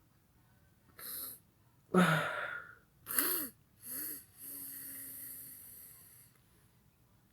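A person sneezing from snuffed chhinkni sneezing powder: a short breath about a second in, the loudest sneeze at about two seconds, two more short explosive breaths, then a drawn-out breathy sound lasting about two seconds.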